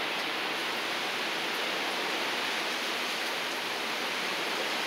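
Hurricane wind and rain: a steady rushing hiss that does not let up, from gusts strong enough to bend the palms flat.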